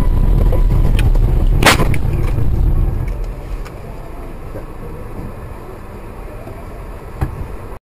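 Low rumble of a car on the move, as picked up by a dash cam, with one short, sharp burst of noise about a second and a half in. The rumble drops away about three and a half seconds in, and the sound cuts off abruptly just before the end.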